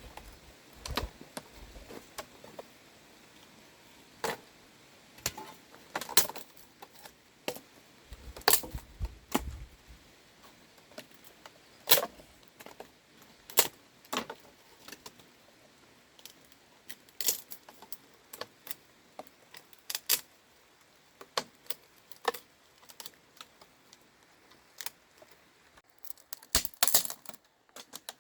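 Irregular light clicks and clacks of hand work on a bamboo chicken coop, with brief low rumbles near the start and about nine seconds in.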